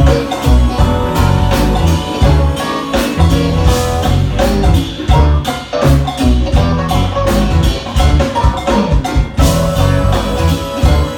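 A jazz-fusion band playing live: drum kit hits and a heavy pulsing bass line under sustained keyboard and instrument notes.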